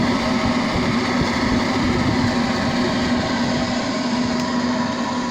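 Freshly restored electric air turbine (blower) running steadily: a constant motor hum with an even rush of air and no knocking or scraping. It runs smoothly, and the owner calls it quiet.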